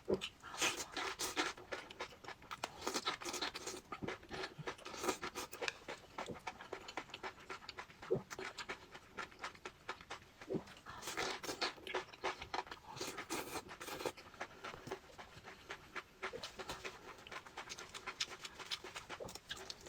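Close-miked eating sounds: crispy fried food crunching and crackling in the mouth, with chewing and heavy breathing.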